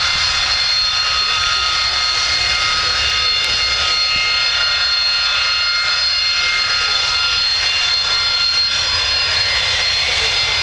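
Jet fighter's engine running steadily on the ground: a continuous whine made of several held high tones over a steady rushing noise.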